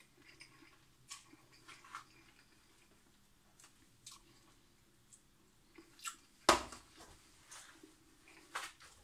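A person eating instant noodles with a fork: faint chewing and mouth sounds with scattered small clicks, and one louder sharp click about six and a half seconds in.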